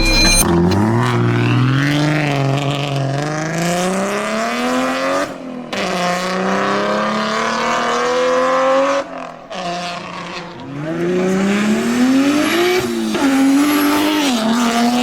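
Single-turbo BMW 135i's straight-six engine accelerating hard through the gears: the pitch climbs in each gear and drops at each upshift, about five, nine and thirteen seconds in.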